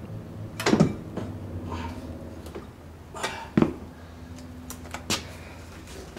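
Several sharp metal clunks and knocks as a BC Racing coilover is worked into place against the front suspension parts: one about a second in, two around the middle and one near the end.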